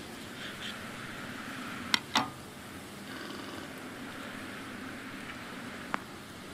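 A knife cutting the twine tied round banana-leaf-wrapped blue draws, with hands handling the dried leaf: two sharp clicks close together about two seconds in and another near the end, over a steady low rumble.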